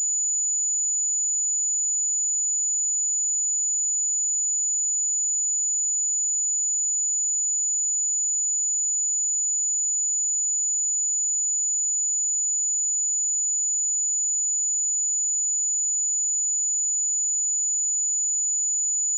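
A single steady 6938 Hz sine-wave test tone: one constant, high-pitched pure tone at an unchanging level.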